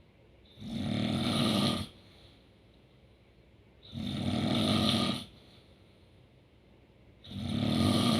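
A sleeping person snoring in a steady rhythm: three snores, each a little over a second long, about three seconds apart.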